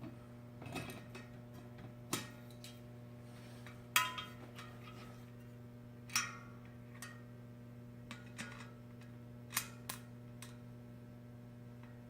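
Small metal parts clinking and tapping as they are handled: about eight separate sharp clicks, some with a short ring, at uneven intervals over a steady electrical hum.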